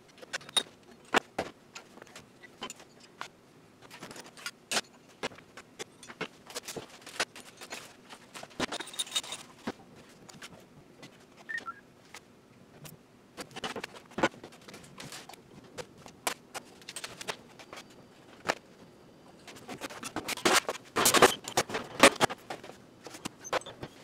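Metal parts of a vintage gas stove clinking and clanking as they are handled: burner parts lifted off the cooktop and oven parts moved about. The knocks and rattles come at irregular moments, with a denser, louder run of clattering near the end.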